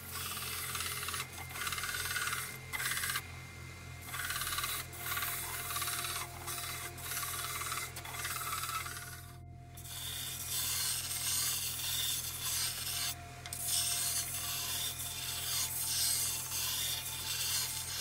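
Electric belt grinder running with a steady motor hum while the edge of a five-ply plywood disc is pressed to the belt, giving a loud rasping hiss that breaks off for a moment three times as the disc is repositioned. The disc's edge is being rounded and chamfered.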